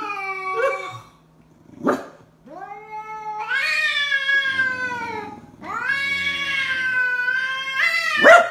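Calico cat yowling at a stuffed toy dog: three long, drawn-out yowls that rise in pitch, with a short sharp burst between the first two. It is an angry, defensive cry at the toy.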